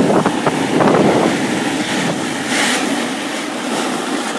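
Snowboard sliding and scraping over packed snow, a steady rushing hiss mixed with wind on the microphone, with a sharper, hissier scrape about two and a half seconds in.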